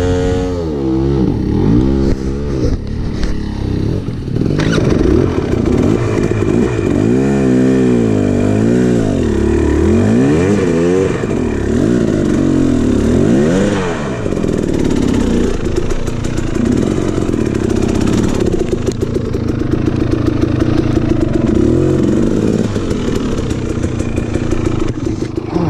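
KTM 300 XC two-stroke dirt bike engine under the rider, revving up and dropping back again and again as the throttle is worked, then running at steadier revs over the second half.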